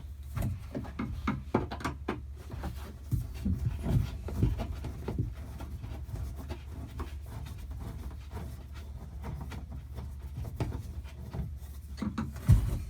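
Flathead screwdriver backing a Loctited mast-base stud out of its brass insert: a run of small irregular clicks and scrapes of tool on metal, with one sharp knock near the end.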